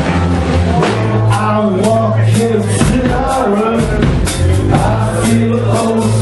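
Live punk rock band playing loudly: a steady bass line, regular drum hits and guitar, with a voice singing over them.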